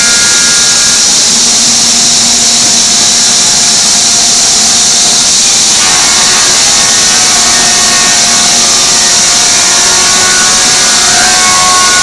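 A 5-axis CNC router's spindle and bit cutting a groove in a wooden board: a loud, steady, high-pitched hiss and whine. Faint tones in the whine change about six seconds in.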